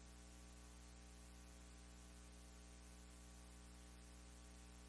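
Near silence, with a steady low electrical mains hum.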